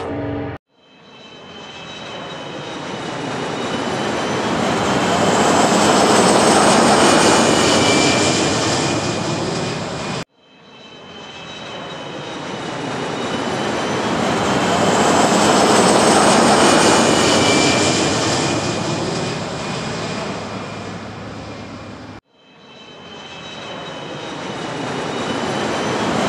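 Jet aircraft flyby sound effect, played as a loop: a rushing roar with a high whine swells over about six seconds, fades, then cuts off abruptly and starts again. Two full passes, with a third building near the end.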